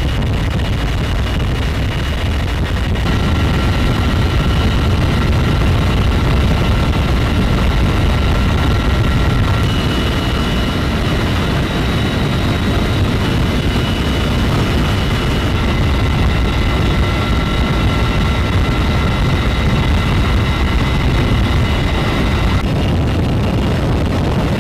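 Sikorsky CH-53E Super Stallion heavy-lift helicopter in flight with an external load, heard from beneath the fuselage: a dense, steady low rush of rotor and wind noise with a high, steady turbine whine on top that comes in a few seconds in and drops away near the end.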